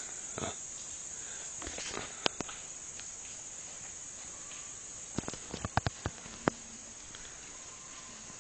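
Steady high-pitched chirring of insects such as crickets, with a sharp click about two seconds in and a quick run of sharp clicks and taps a little past the middle.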